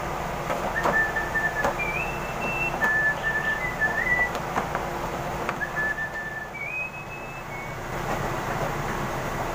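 A person whistling a short tune of clear held notes that step up and down, in two phrases, over a steady background noise with a few soft knocks from hands working dough on a steel table.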